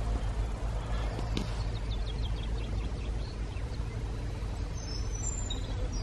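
A steady low rumble, with a few faint high bird chirps near the end.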